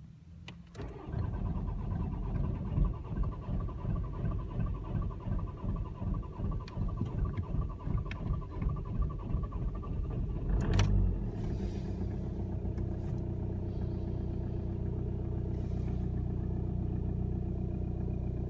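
Audi A3 2.0 TDI (BKD) four-cylinder turbodiesel started from cold: it fires about a second in and runs rough and uneven for about ten seconds, then settles into a steady idle. The rough running is the cold-start problem the owner cannot explain.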